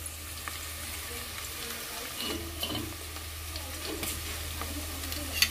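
Chopped onion sizzling steadily in hot oil in a cooking pot, with a few light clicks of a utensil.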